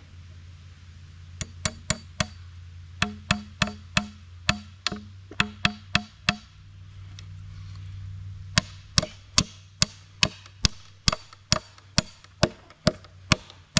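Steel-headed Estwing camp hatchet used as a hammer, its flat poll driving a nail into a wooden chopping block. A few light starting taps come first, then a run of sharper blows with a short ring, a pause of about two seconds, and then a steady run of hard strikes at about two a second.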